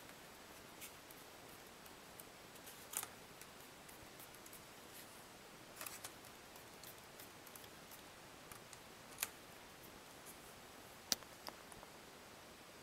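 A handful of faint, scattered clicks and taps of screws and a screwdriver on the quadcopter's plastic and metal chassis as the plate screws are tightened, with two sharper clicks near the end, over a steady low hiss.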